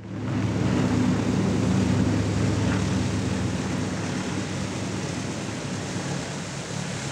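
Jet aircraft engine noise, a steady rushing roar with a low hum under it, swelling in at the start and easing slightly toward the end.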